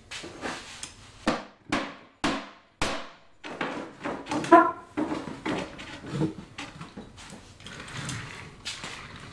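Workshop hand tools and metal parts knocking and clattering while a table is being taken apart: a run of sharp separate knocks, then busier rattling with one short metallic ring about four and a half seconds in.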